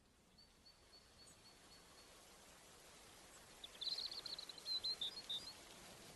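Steady hiss of rain fading in and growing louder, with a thin high whistle held for over a second early on. About four seconds in, a bird sings a quick burst of high chirps, the loudest sound here.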